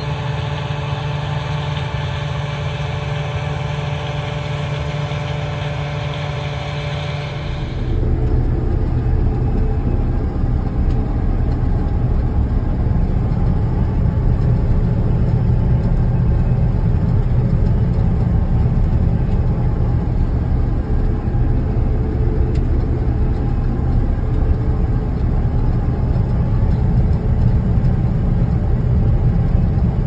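Combine harvester running while cutting soybeans, a steady engine hum over a low rumble. About eight seconds in the sound changes abruptly to a louder, rougher rumble heard from inside a combine's cab.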